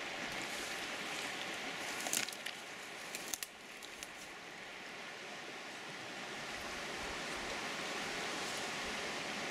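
Steady rush of a flowing forest stream, with a few brief clicks and rustles between two and three and a half seconds in.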